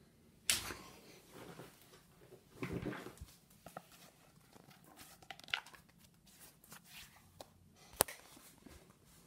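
Faint scattered ticks and taps in a quiet room, with one sharp click about eight seconds in.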